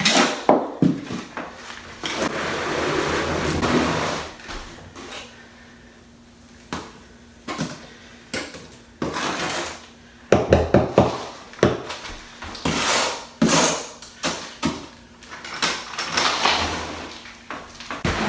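Steel trowel scooping wet mortar from a bucket and scraping it flat across a plywood subfloor. There is a long scrape a couple of seconds in, then a run of short knocks and scrapes in the second half.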